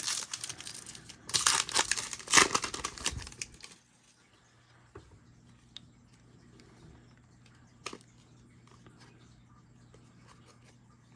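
A trading-card pack's foil wrapper being torn open and crinkled, in several loud crackly bursts over the first few seconds. Then quiet card handling with a few faint clicks.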